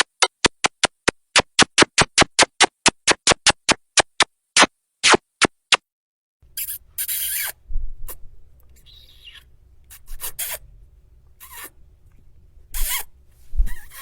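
A rapid run of short kissing smacks, about four a second, that stops about halfway through. After a brief silence come slower, longer smooching sounds, a few seconds apart, over a low background hum.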